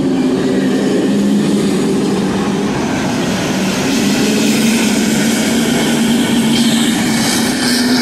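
A pack of pro stock dirt-track race cars running together around the oval, their many engines blending into a loud, steady drone.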